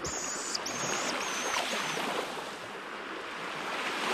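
Surf washing onto a shingle beach, swelling near the end. In the first two seconds a high, thin call sounds about four times over it.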